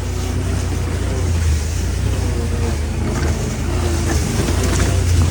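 A vehicle's engine running steadily under way, a low drone with rattling over it.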